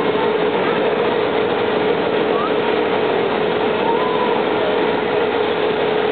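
Overhead crane hoisting a suspended railcar body: a steady machine hum with one constant tone over a even noise.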